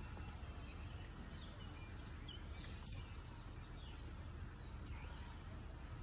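Steady outdoor background noise, mostly a low rumble, with a few faint bird chirps near the middle and a faint high insect trill.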